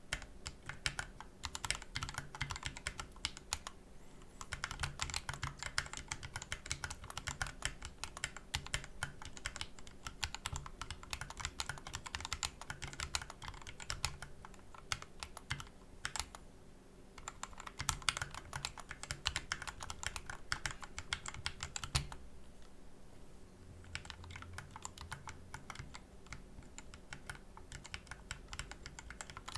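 Continuous typing on a Corne split keyboard with lubed Tealios v2 67g linear switches (Krytox 205g0), DSA PBT keycaps and a 3D-printed ABS case: a dense run of keystrokes with a couple of short lulls. About two-thirds of the way through there is one sharp clack, and the typing is lighter after it.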